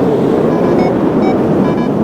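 Strong wind buffeting the microphone with a loud, low rushing. From about half a second in, several short electronic beeps sound at a steady pitch, typical of a paragliding variometer signalling lift.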